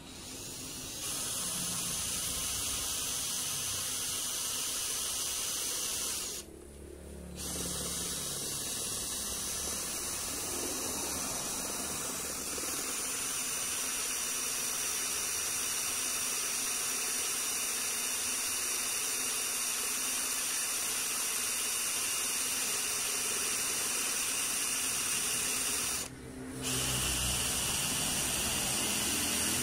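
Mollar CDID20500 cordless drill with a brushed (carbon-brush) motor running steadily as a Sutton twist bit cuts into the steel of a used brake pad. The drill stops briefly twice, about six and a half seconds in and again near the end, then starts again; the bit is one that is not very sharp.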